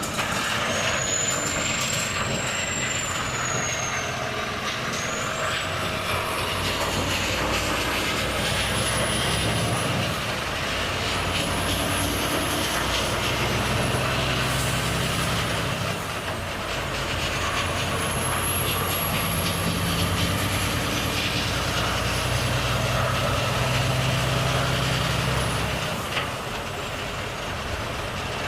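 Volvo FH truck's six-cylinder diesel engine pulling on the road, its low drone swelling and easing, over steady road noise. A high whistle rises and fades several times as the engine works.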